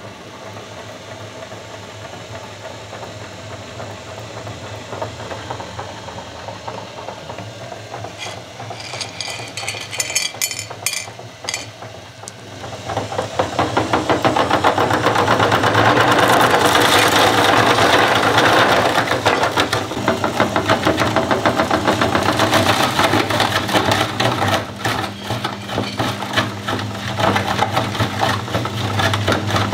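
Pulley-driven meat grinder running with a steady motor hum while purple candy is crushed through it, with scattered sharp cracks. About halfway through the grinding grows louder and denser as the candy is ground to powder and forced out through the plate.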